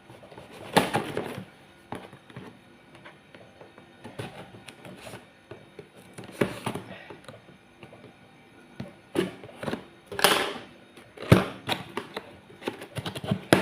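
Cardboard box and packaging being opened and handled: irregular rustling, scraping and knocks, busiest in the second half.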